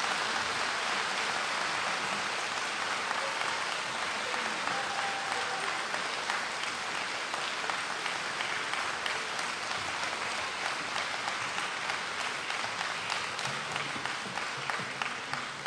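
Audience applauding, a dense clapping that gradually thins, with single claps standing out more toward the end.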